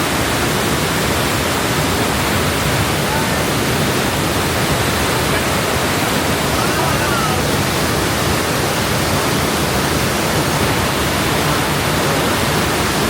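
Waterfall close by: a steady, dense rush of falling water.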